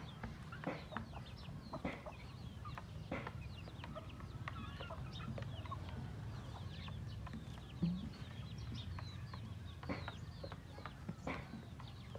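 Backyard chickens clucking and calling while feeding, with many short high chirps mixed in and a steady low hum underneath; one brief louder low sound about eight seconds in.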